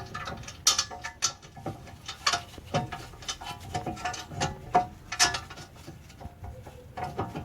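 Ratchet wrench clicking and metal tools clinking while bolting on a rear brake caliper assembly, in short irregular spurts.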